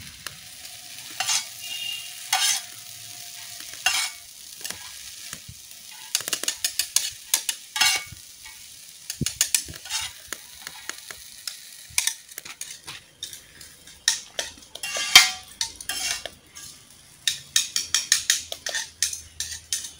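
Boiled chow mein noodles frying in hot oil on a large iron tawa: a steady sizzle, with a spatula scraping and knocking against the pan as the noodles are tossed, the strokes sparse at first and coming in quick runs from about six seconds in.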